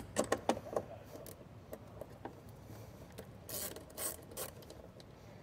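Small socket ratchet clicking as it tightens a nut down onto a circuit breaker's terminal post. It gives a quick run of sharp clicks in the first second, then a few short rasping bursts of ratcheting about three and a half to four and a half seconds in.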